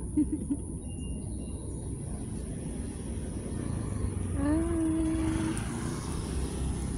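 A calico cat gives a single short meow, rising and then held level, about four and a half seconds in, over a steady low rumble.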